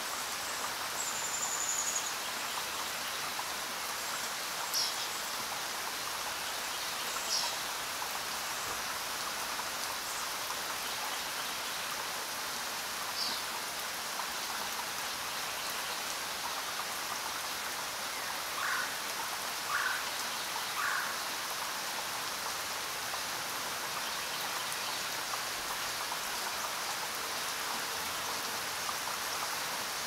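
Steady rain falling, an even hiss. Over it a bird gives a few short high chirps now and then, and three lower notes about a second apart a little past the middle.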